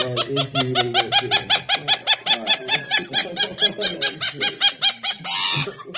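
A green parrot giving a fast run of laugh-like squawks, about five a second, with a man laughing along.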